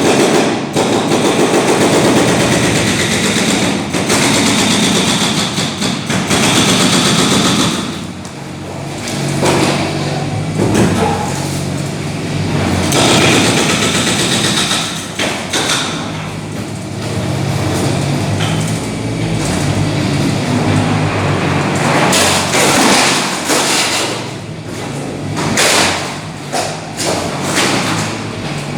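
Construction machine's engine running, with repeated thuds and knocks of demolition work.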